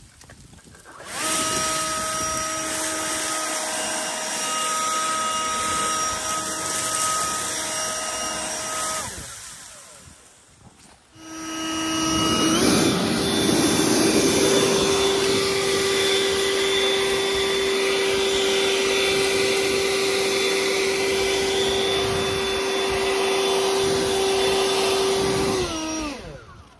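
A small motor runs with a steady whine. It shuts off, starts again a couple of seconds later, steps up in pitch, then winds down with a falling pitch near the end.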